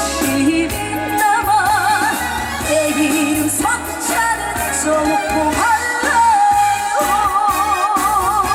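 Trot song performed live through a PA: backing band with a steady low beat under a high lead melody held in long notes with a wide, even vibrato.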